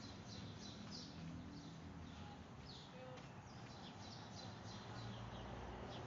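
Small birds chirping and singing: many short, high, downward-sweeping chirps in quick succession, over a faint, low, steady hum.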